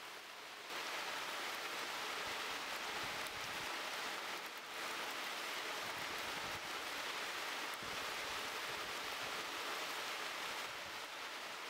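Zaseka, a smoked ground pork fat, sizzling steadily as it melts and fries in a black steel pan over a campfire, stirred with a wooden spoon.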